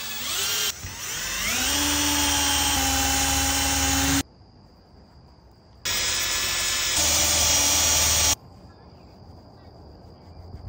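Power drill running in two bursts of about three and a half and two and a half seconds. On the first burst the motor winds up in pitch before holding steady; on the second the pitch steps up partway through.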